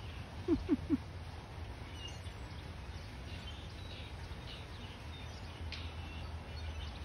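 Three short low calls in quick succession, each falling in pitch, about half a second in, over a steady low background hum. Faint bird chirps come and go.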